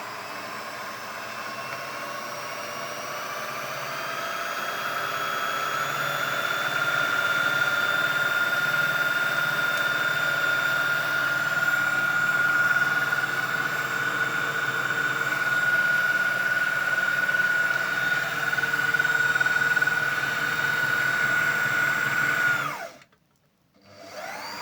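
Electric scroll saw running, its motor whine rising in pitch and growing louder over the first several seconds, then holding steady. It cuts off abruptly near the end, followed by a brief whir.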